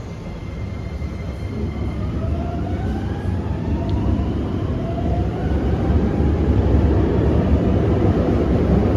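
Metro train running on the track behind the platform screen doors: a deep rumble that grows steadily louder, with an electric motor whine slowly rising in pitch.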